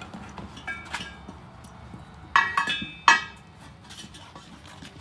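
Steel tire irons clinking against a steel wheel rim while a new tire is levered onto it: several ringing metal clinks, the loudest two a little past halfway.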